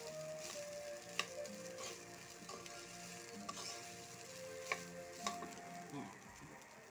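Metal spatula stirring and scraping garlic fried rice around a metal wok, with a few sharp clinks of the spatula against the pan over a light sizzle. Background music with held notes plays underneath.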